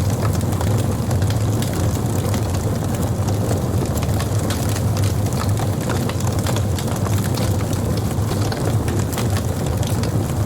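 Wood campfire burning: many sharp crackles and pops over a steady low rumble.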